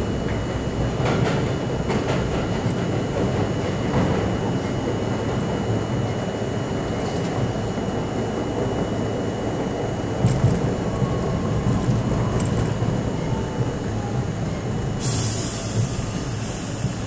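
New York City Subway C train running and slowing into a station, heard from inside the front car: a steady rumble of wheels on rail with a few clacks over rail joints early on, a faint falling whine as it slows, and a loud hiss of air near the end as it comes to a stop.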